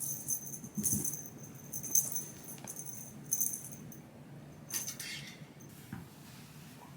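A small bell jingling in irregular shakes for about four seconds, then a brief rustle about five seconds in.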